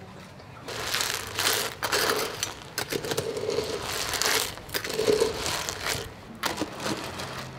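Metal ladle stirring and scooping tiny sea snails in a pot of curry: the shells rattle and the ladle scrapes against the metal pot in rough, uneven strokes. It starts about a second in and stops near the end.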